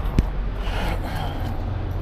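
Steady low engine hum. A single thump comes near the start, and a short breathy hiss follows about a second in.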